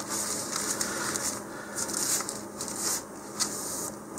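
Thin plastic model-rocket parachute sheet crinkling and rustling as a hand unfolds it and smooths it flat on a cutting mat, in irregular crackles.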